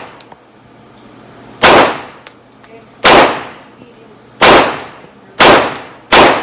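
Five single pistol shots from a 9mm Glock 19X, fired at an uneven pace about a second to a second and a half apart, each very loud with a short echoing tail.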